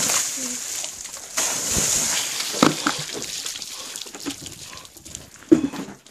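A load of water splashing down over a seated person and onto wet tarmac, with a second rush of splashing about a second and a half in. Short yelps and gasps follow, a few seconds in and again near the end.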